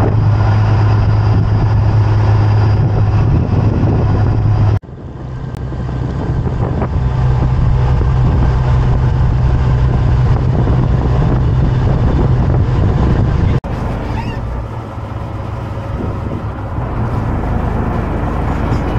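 Small boat's engine running with a steady low drone under wind and water noise; the sound breaks off sharply twice, about five and fourteen seconds in.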